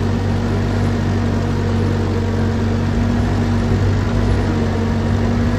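Ford 9N tractor's four-cylinder flathead engine running at a steady, even speed as it drives along, with the engine of a second tractor just ahead.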